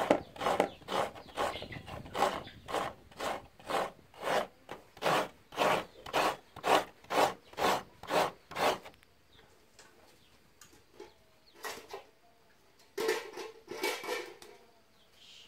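Coconut flesh being grated by hand, a rhythmic rasping at about two strokes a second that stops about nine seconds in. A few scattered scrapes follow near the end.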